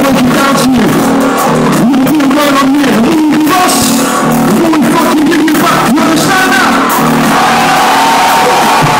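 Loud live electronic rock music from a band on stage, with a voice singing over held chords and sharp drum hits. The recording is poor and overloaded.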